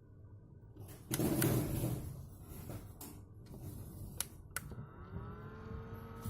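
Handling noise and a few sharp clicks, then the small battery-powered motor of a PLD AF003 portable fan starts up. Its whine rises in pitch and settles into a steady hum near the end.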